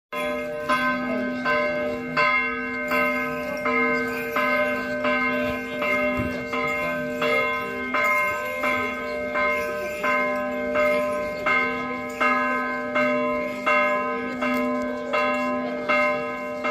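Church bell ringing, struck over and over in a steady quick rhythm of about three strokes every two seconds, each stroke ringing on into the next.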